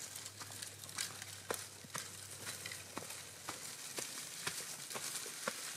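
A run of irregular light clicks and crackles, a few a second, over a faint hiss.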